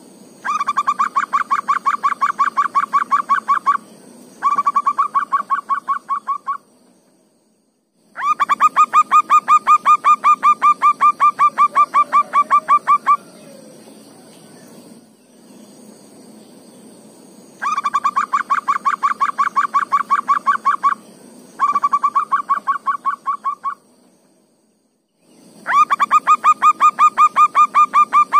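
Zebra dove (perkutut) song: six runs of rapid, evenly spaced cooing notes, several a second, each run lasting two to five seconds with short pauses between. A steady high-pitched insect buzz runs underneath.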